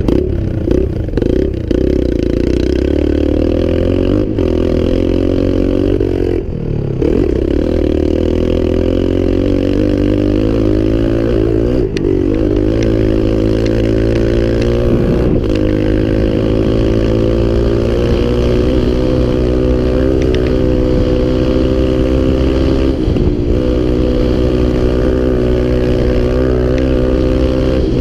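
A small off-road vehicle engine runs steadily under way, its pitch rising and falling slightly, with a brief dip about six and a half seconds in.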